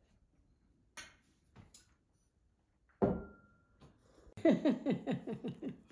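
Laughter, a quick run of short falling laughs starting about a second and a half before the end. Before it, a few soft clicks and, about halfway, a sharper knock with a brief ring, typical of tea glasses and spoons at a table.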